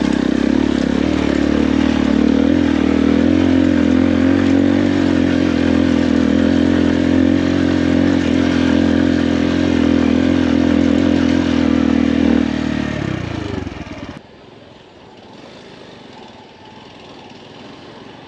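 Motorcycle engine running steadily at an even pitch, then winding down about twelve seconds in and cutting off suddenly soon after, leaving a much quieter background.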